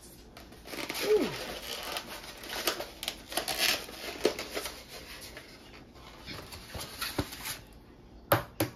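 Rustling and light knocks of things being handled on a kitchen counter, with a short falling whine about a second in. Near the end come two sharp, loud clicks as a plastic egg carton is set down by the mixing bowl.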